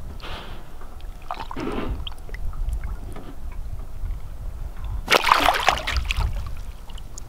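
Water sloshing and splashing as a large catfish is released back into the water, with one loud splash lasting about a second, about five seconds in.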